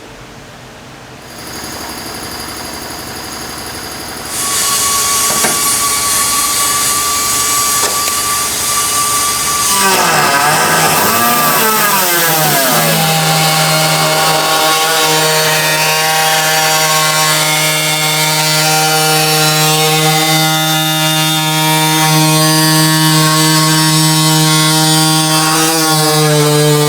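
A power tool cutting metal, running continuously. It grows louder about four seconds in, its pitch dips and swings back up around ten seconds in, and it then runs at a steady pitched whine.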